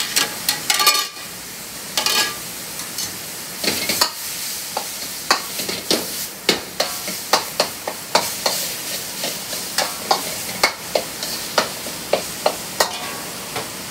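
Ground pork sizzling in a wok over a gas burner, while a metal wok ladle stirs it, knocking and scraping against the pan with about two sharp clanks a second over a steady hiss.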